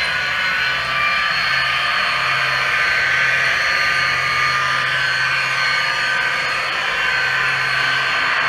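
HO scale CN diesel model locomotive running along the track: a steady sound with a high whine held throughout.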